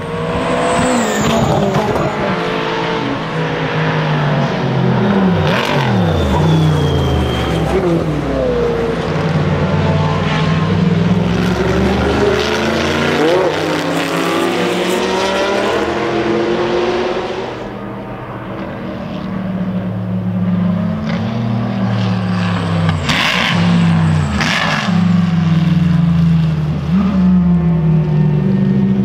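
Racing cars passing at speed, among them the Shelby Daytona Cobra Coupe's V8. The engine notes climb through the revs and drop back sharply again and again, as at gear changes, with a quieter stretch about two-thirds of the way through.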